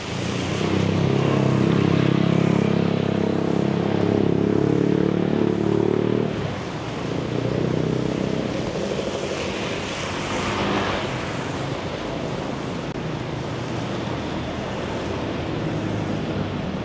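Street traffic on a wet road in the rain. A vehicle's engine hums steadily close by for about the first six seconds, then fades. After that there is an even hiss of tyres and rain on wet tarmac, and a vehicle swishes past about ten seconds in.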